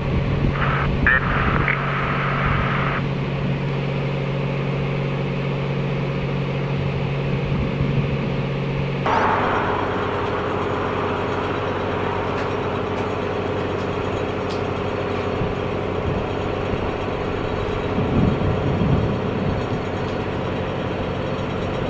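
A vehicle engine idling with a steady hum. The hum changes abruptly about nine seconds in to a slightly different pitch.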